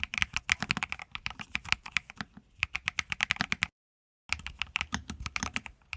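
Typing on a mechanical keyboard: a steady run of rapid keystrokes. It cuts out to dead silence for about half a second just before the 4-second mark, then resumes. This is an A/B sound test of the old keycaps against a new cream Bubble Tea keycap set.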